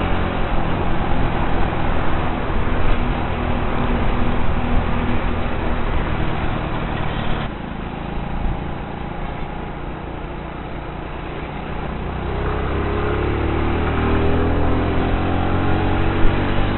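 Motorcycle on the move: the engine runs under a steady rush of wind noise, which eases a little under halfway through. From about three quarters of the way in, the engine pitch climbs steadily as the bike accelerates.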